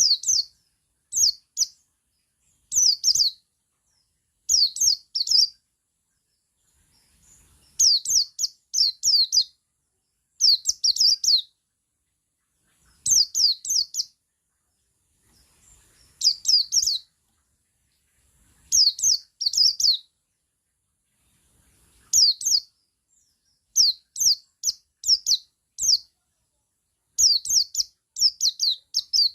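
Male buxtoni white-eye (pleci buxtoni) singing its 'ngalas' song: short phrases of quick, high, downward-slurred notes, repeated every second or two with brief pauses between.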